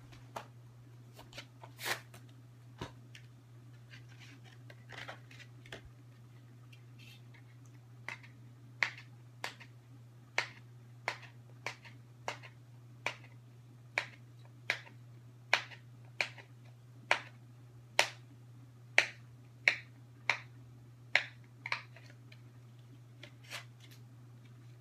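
Hands working the movie's plastic case and packaging: a few scattered clicks, then from about eight seconds in a regular run of sharp clicks, about one every 0.7 seconds, that stop a couple of seconds before the end, over a steady low hum.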